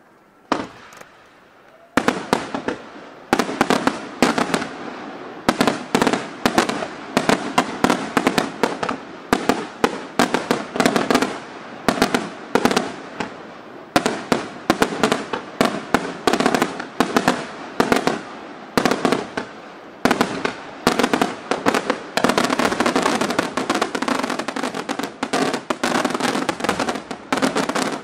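Aerial fireworks shells exploding in the sky. A single bang comes about half a second in, then from about two seconds a dense string of sharp reports, several a second, which builds into an almost continuous barrage near the end.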